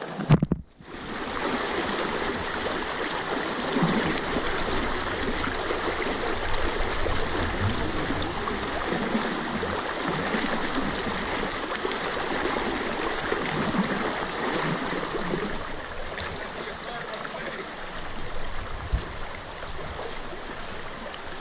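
Shallow river running over rocks, a steady rushing and rippling of water close by, after a short knock and a brief cut-out of sound right at the start.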